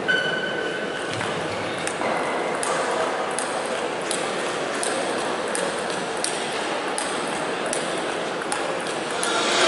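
Table tennis rally: a celluloid-type ball clicking off rackets and the table about every 0.7 s, starting with the serve. Near the end, a louder wash of hall noise rises.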